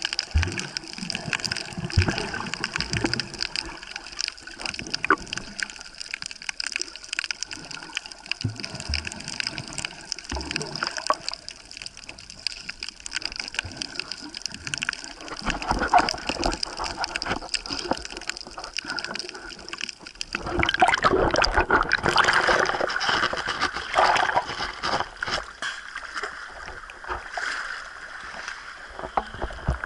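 Water bubbling and sloshing as a snorkeler swims, heard from beneath the surface, with scattered knocks and a louder stretch of water noise about two-thirds of the way through.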